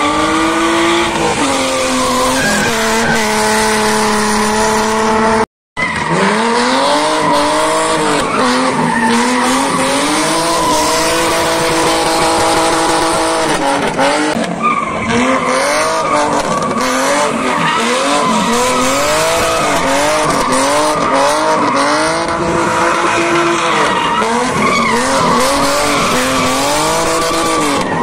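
Car engine revving hard, held high through long slides and then rising and falling quickly over and over, with tyres skidding and squealing on asphalt. The sound cuts out briefly about five and a half seconds in.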